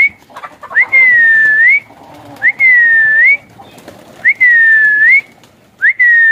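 A person whistling a loud, clear note over and over, about once every couple of seconds, to send released pigeons up into flight. Each whistle flicks up, holds a slightly sagging tone, and lifts again at the end.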